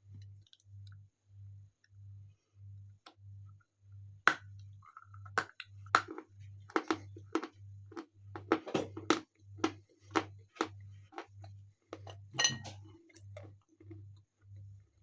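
Sharp crunches and clicks of hard pieces being bitten close to the microphone. They start about four seconds in and thin out near the end, over a faint low throb repeating about three times a second.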